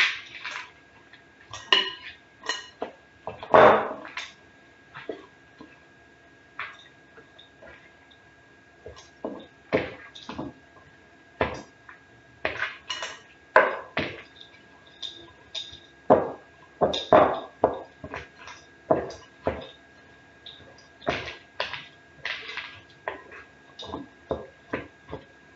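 A large spoon stirring thick dough in a glass mixing bowl: irregular scrapes and clinks of the spoon against the glass, some ringing briefly.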